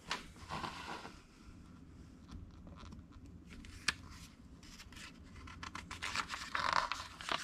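Glossy magazine pages rustling and rubbing under the fingers, with a sharp tick about four seconds in. A louder rustle of a page being lifted and turned comes near the end.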